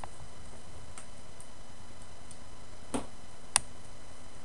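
Two sharp clicks about half a second apart, about three seconds in, the second louder, with a few fainter ticks before them, over a steady hiss.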